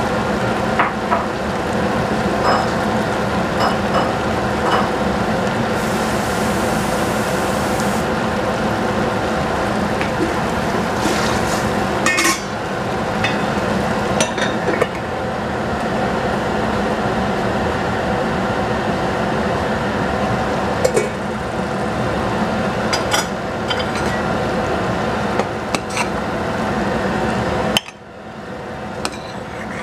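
Vegetables cooking in a stainless steel pot on a gas stove, a steady hiss and hum under scattered clinks of a metal lid, spatula and spoon against the pot and plate. The steady noise drops away suddenly near the end.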